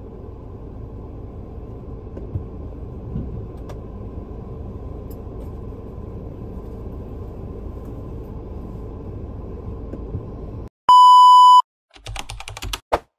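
Steady low rumble inside a parked car's cabin for about ten seconds. Then a loud, steady electronic beep lasting under a second, followed by a quick run of keyboard-typing clicks as an end-card sound effect.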